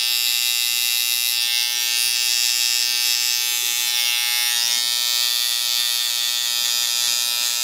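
Barber's electric hair-cutting tool running steadily as it is worked over the client's head, cutting hair close to the scalp during a skin fade.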